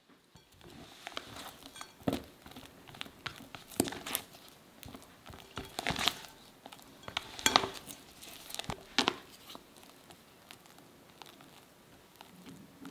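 Silicone spatula stirring and folding thick Italian meringue buttercream in a glass bowl: soft squishy scraping, broken by sharp knocks of the spatula against the glass every second or two.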